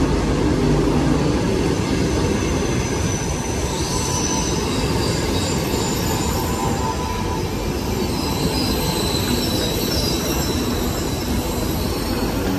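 Frecciargento high-speed train rolling into the station past the platform and slowing: a steady rumble of the wheels on the rails, with a faint high squeal above it.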